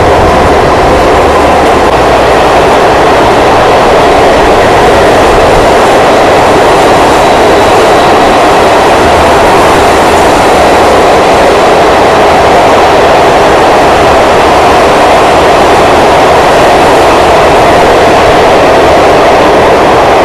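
Train running through a long rail tunnel, heard from on board: a loud, steady rush of wheel and track noise, closed in by the tunnel walls.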